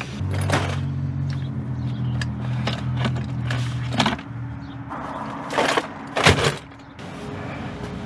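Tools, boxes and a hose reel being shifted and knocked about in a service van's cargo area: scattered clunks and knocks, the loudest a little after six seconds, over a steady low hum that fades about halfway through.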